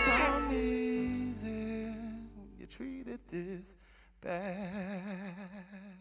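The band's final chord ringing out and fading as the song ends. About four seconds in, after a brief near-quiet gap, a single held note with a wide vibrato sounds and then dies away.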